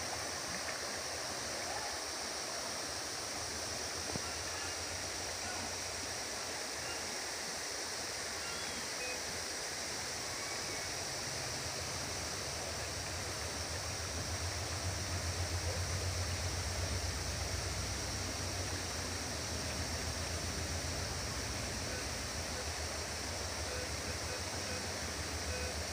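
Steady rush of water from a waterfall. A low rumble swells underneath it about halfway through.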